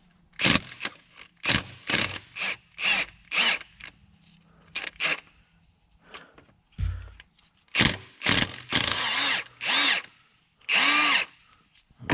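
Cordless Milwaukee Fuel tool run in repeated short bursts, spinning out fasteners on the powershift transmission. The runs are brief at first, and two longer runs of about a second come near the end.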